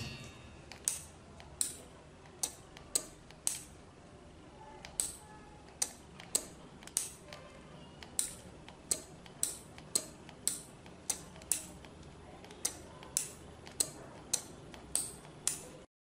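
Small PCB relays on a two-channel IR remote-control relay board clicking as they switch, one sharp click every half second to second in an uneven rhythm. The clicking cuts off suddenly near the end.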